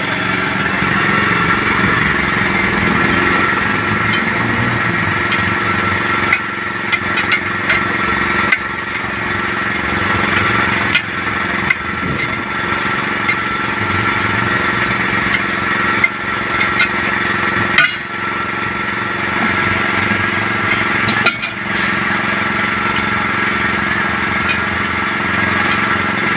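Steel tyre lever clanking and scraping against a steel wheel rim as a tyre bead is pried on by hand, with several sharp clanks a few seconds apart, over a steady engine hum.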